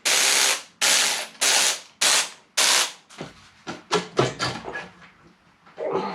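Impact wrench hammering in five short bursts of about half a second each, breaking loose the cylinder head nuts. After about three seconds come lighter metallic clicks and clanks.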